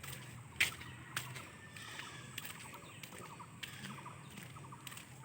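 Faint outdoor sounds: a few sharp clicks, the loudest two about half a second and a second in, over repeated runs of short, quick chirps.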